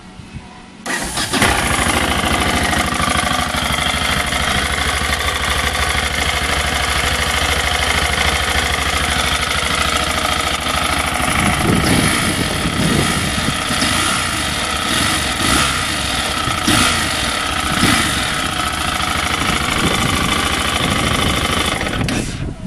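Aprilia Pegaso 650's single-cylinder four-stroke engine starting about a second in and then running steadily, revved briefly a few times in the second half. The engine has a knock, which the owner reports.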